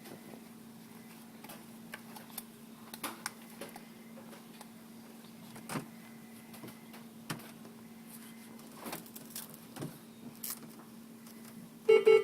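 A steady low machine hum with scattered faint clicks and rustles of handling. Near the end there is a short, loud pitched sound.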